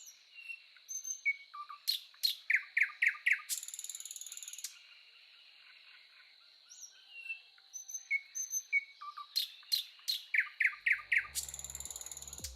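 A songbird singing: a few short chirps, then a quick run of about five sharp notes ending in a buzzy trill, the same phrase twice about seven seconds apart, over a faint steady high-pitched whine. Low music notes come in near the end.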